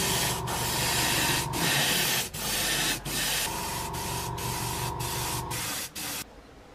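Airbrush spraying paint in a series of hissing bursts with brief breaks between them, stopping about six seconds in.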